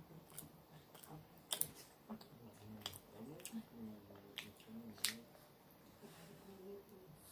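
A person chewing soft food close to the microphone, with wet mouth clicks and smacks every second or so.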